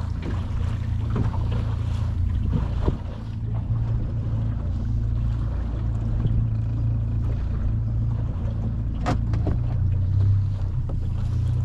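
A boat's motor running at idle: a steady low hum under everything, with a sharp click about nine seconds in.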